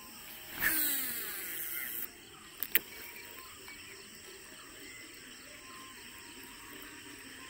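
A baitcasting reel's spool whirring as line pays out on a cast, its pitch falling as the spool slows over about a second and a half. Two sharp clicks follow, then faint steady noise while the line is reeled back in.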